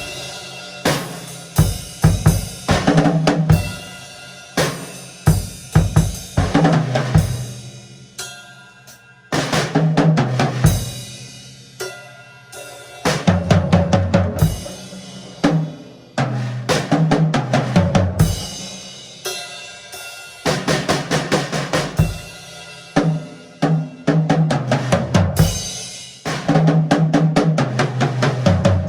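Drum kit played solo: fast fills of strokes that step down in pitch across the toms, with bass drum, snare and cymbal crashes, in phrases broken by brief pauses.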